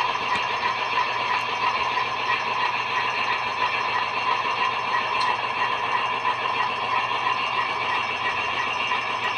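QSI Titan-A sound decoder in a model locomotive playing a recorded ALCO 244 diesel engine idling steadily through the model's two small speakers.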